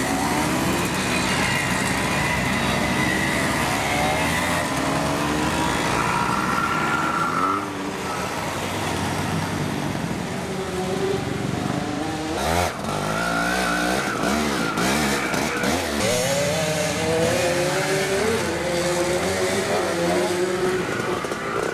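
Several Hercules 125 cc military two-stroke motorcycles running, their engines revving up and down with overlapping rising and falling pitches as bike after bike passes.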